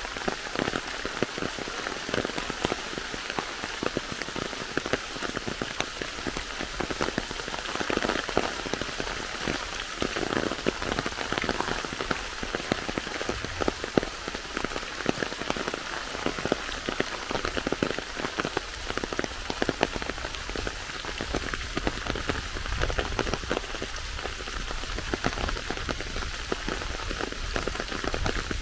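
Steady rain, with dense close raindrop hits pattering on an umbrella overhead.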